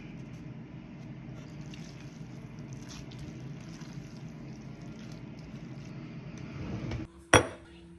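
Pasta in a cream sauce in a skillet, making a steady wet, squishy sound, then two sharp knocks near the end.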